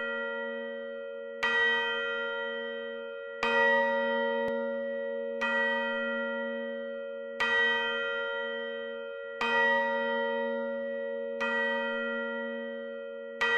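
A large bell tolling slowly, struck seven times about two seconds apart, each stroke ringing on and fading before the next.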